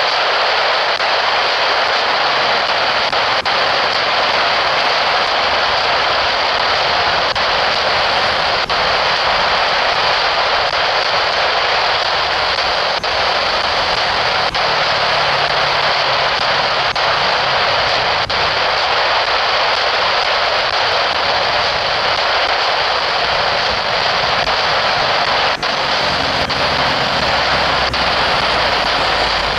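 Air-band radio receiver hissing with open squelch between transmissions: a steady, loud static with a few faint clicks.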